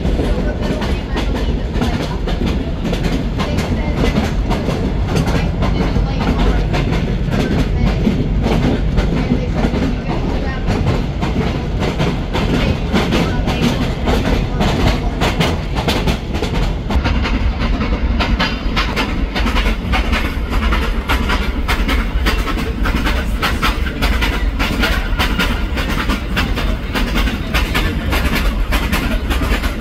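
Railroad cars rolling along, heard from the car roof: a steady low rumble with a rapid clicking and clattering of steel wheels on the rails, the clatter growing sharper about two-thirds of the way through.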